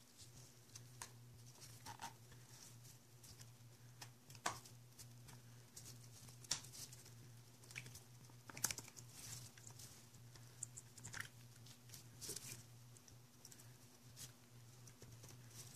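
Faint, scattered clicks and rustles of gloved hands handling small metal parts while fitting the lever onto a motorcycle clutch master cylinder, with a few sharper clicks near the middle, over a steady low hum.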